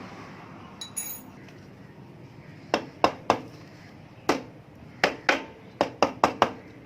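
Hammer knocks on a Yamaha RXZ two-stroke engine's cylinder, striking it loose from its gasket so it can be lifted off. A single ringing metallic clink about a second in, then about ten sharp knocks in irregular groups.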